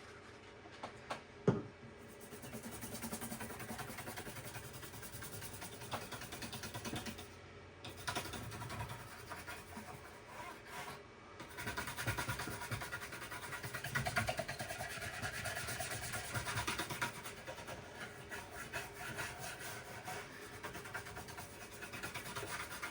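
Soft-bristle toothbrush scrubbing gunk off a computer part wetted with isopropyl alcohol: a steady brushing rasp with short breaks about 8 and 11 seconds in. A couple of small knocks come just before the scrubbing starts.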